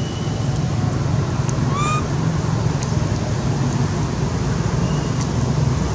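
Steady low outdoor rumble with no clear single source, and a couple of short, high rising chirps about two seconds in.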